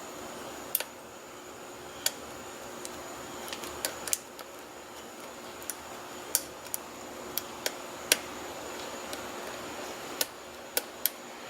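Lock pick clicking against the pin stacks of an ERA rim cylinder: a dozen or more small, sharp, irregular clicks as the pins are lifted and pushed against spring pressure under tension. A faint steady hum runs underneath.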